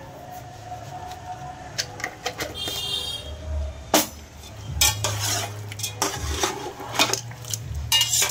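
Steel slotted spoon scraping and knocking against a steel pot as bone-in mutton pieces are stirred and browned in oil. There are irregular sharp clanks, the loudest about four seconds in.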